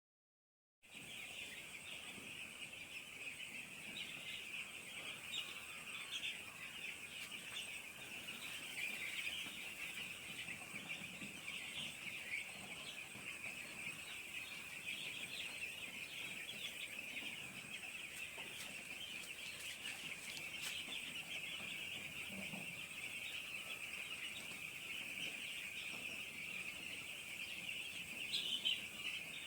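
A flock of five-day-old chicks peeping continuously, many high calls overlapping into a steady chorus that starts about a second in.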